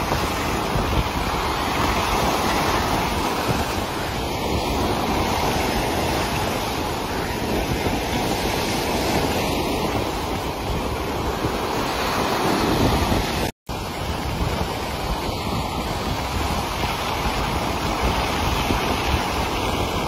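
Sea waves churning and breaking into white foam: a steady, dense rushing wash. It cuts out completely for a split second about two-thirds of the way through, then carries on.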